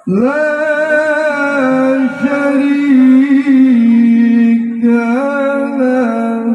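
A man reciting the Qur'an in the melodic tilawah style into a microphone, starting suddenly and holding long ornamented notes; the melody steps down to a lower note midway and climbs again near the end.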